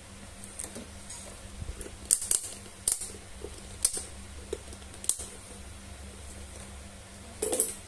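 Scattered light plastic clicks and taps from a digital multimeter and its test probes being handled, about six in all, over a faint steady low hum.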